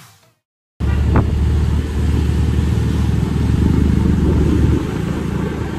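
Intro music fades out, and after a brief silence a loud, steady, low rumble of motorcycle riding starts: engine and road noise picked up while on the move.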